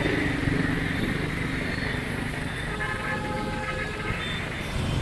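City street traffic, mostly motorbike engines running, as a steady noise. A faint pitched sound comes in briefly about three seconds in.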